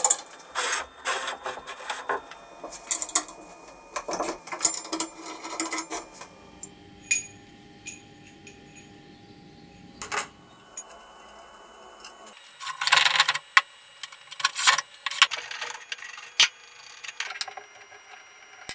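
Clinking, clicking and scraping of metal parts on the cast-iron head of a Tauco DP220 drill press as its threaded clamp bolt and handle are worked loose and handled. The sounds are irregular, with a quieter spell of several seconds midway and a denser clatter after it.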